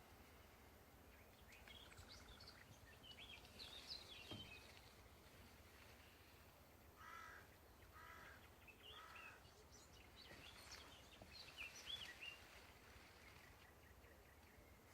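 Faint outdoor birdsong: small birds chirping in quick, high sweeps, and near the middle a bird giving three harsh calls about a second apart.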